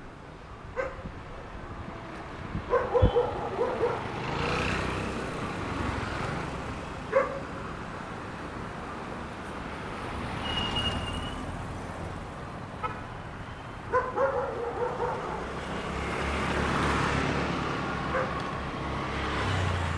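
A dog barking in short bursts, a few at a time, over the sound of road traffic that swells and fades as vehicles pass.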